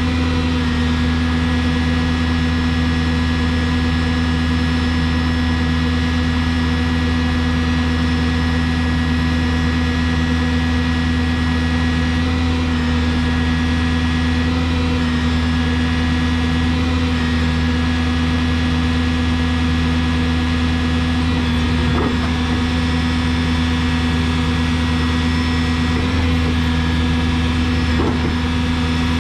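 Diesel engine of a Yale 175 forklift running at a steady speed, being run to heat the exhaust so the SCR system and NOx sensors reach operating temperature.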